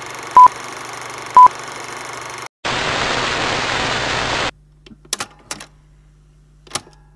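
Film-countdown leader sound effect: two short beeps a second apart over a crackling film hiss, then a burst of loud TV static that cuts off suddenly, followed by a faint low hum with a few sharp clicks.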